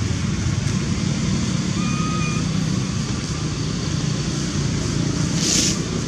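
Steady low rumbling background noise, with a short, high, flat chirp about two seconds in and a brief dry rustle near the end.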